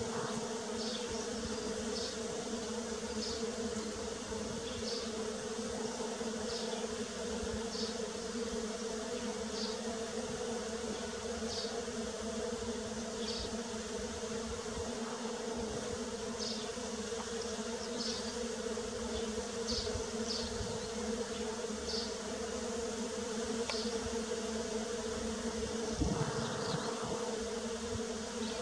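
Bees buzzing together in a steady, even hum, with short high chirps repeating about once a second over it. Near the end a louder buzz swells briefly.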